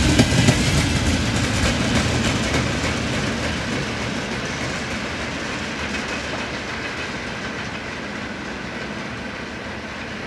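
Freight train of open gondola wagons rolling past, its wheels clattering on the rails. The sound fades steadily as the end of the train draws away.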